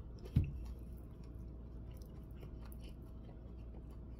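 A person chewing a mouthful of food eaten by hand, with faint small mouth clicks. One brief low thump about half a second in is the loudest sound.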